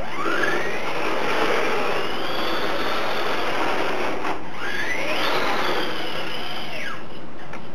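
Tamiya TT01D electric RC drift car's motor and shaft drivetrain whining. The pitch rises as it pulls away, holds, drops about four seconds in, climbs again and falls near the end. A steady hiss runs under it.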